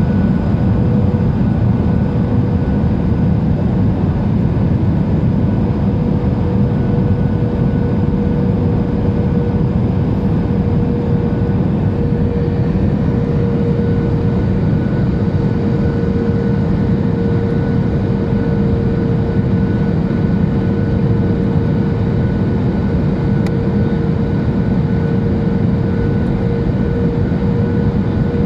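Steady in-flight cabin noise of a Boeing 737-800: the constant rush of airflow and drone of its CFM56-7B jet engines, with a steady hum.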